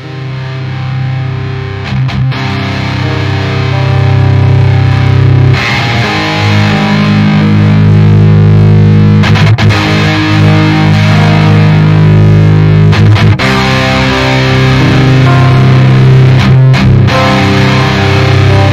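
Rock music led by distorted electric guitar chords, fading in over the first few seconds and then steady and loud.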